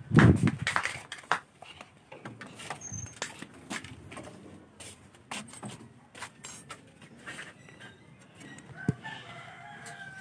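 A phone handled close to its microphone: a loud rubbing thump at the start, then repeated knocks and clicks. A bird's call sounds near the end.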